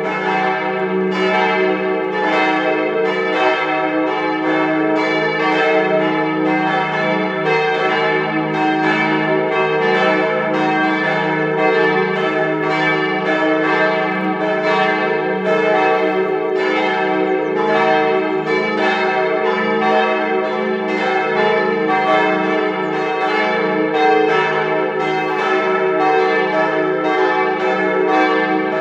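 Church bells swinging in a partial peal, only some of the tower's bells ringing: a quick, unbroken succession of overlapping strokes over a steady hum of ringing tones.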